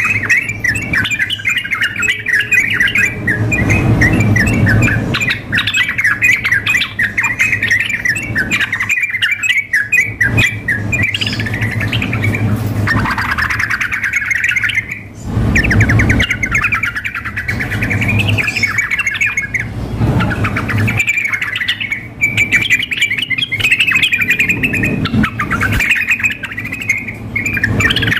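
Yellow-vented bulbuls (trucukan) chattering and singing in fast, bubbling runs of notes, with more than one bird calling together in an excited, contest-style bout. The song goes on almost without a break, pausing briefly about nine and fifteen seconds in.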